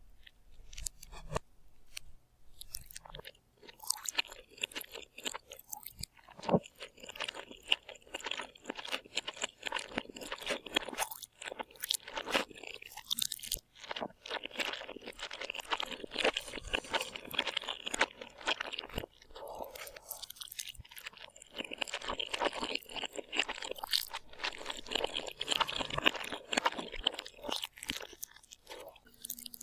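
Crunchy chewing and biting of food close to the microphone, a dense run of crisp crunches without pause.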